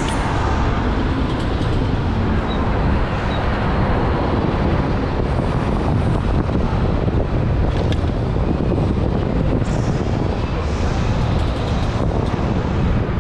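Electric go-kart running on a track: a steady rumble and rushing noise with no pitched engine note.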